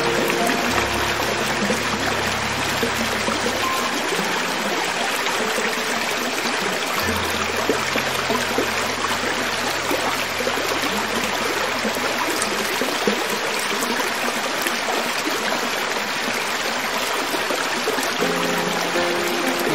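Creek water flowing over rocks: a steady, even rush with no breaks. Low held tones sound faintly underneath it twice.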